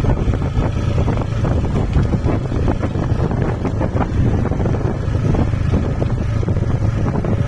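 A vehicle's engine running steadily, heard under heavy wind buffeting on the microphone.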